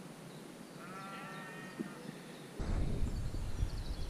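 A sheep bleats once about a second in. From about two and a half seconds in, a loud low rumble of wind on the microphone takes over, with faint bird chirps near the end.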